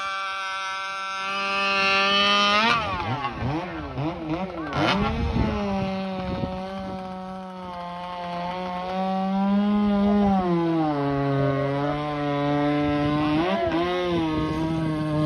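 Two-stroke chainsaw running at high revs through a log cut. About three seconds in its pitch swoops up and down for a couple of seconds. It then runs steady out of the wood, drops to a lower pitch about ten seconds in, and climbs again near the end.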